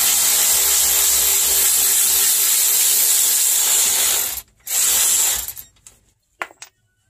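Hand-held power tool run in a loud hissing whir for about four seconds, stopping briefly, then run again for about a second, spinning out an 18 mm caliper bracket bolt that has just been broken free. A couple of light knocks follow near the end.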